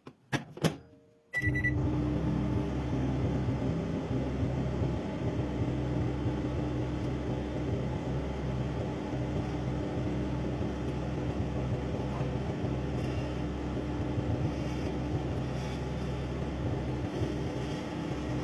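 A few sharp clicks and a short high beep about a second in, then a microwave oven switching on and running with a steady hum.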